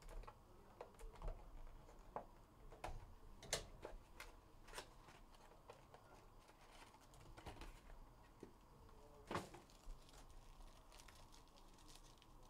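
Faint scattered clicks and rustles of a cardboard trading-card box being opened and handled, then a foil card pack being handled. The sharpest clicks come about three and a half and nine and a half seconds in.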